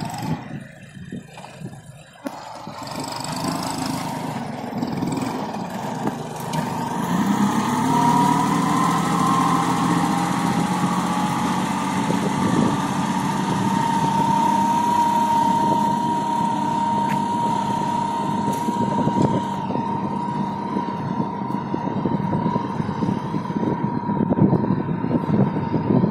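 Kubota B2741 mini tractor's three-cylinder diesel engine running under load while it pulls a seed drill. The engine note is quieter for the first two seconds, rises about seven seconds in, then holds steady, with a steady high whine over it.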